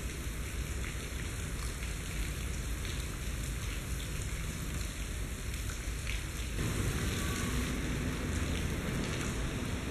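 Rain falling steadily, an even hiss with a low rumble beneath it; the sound changes abruptly about two-thirds of the way through.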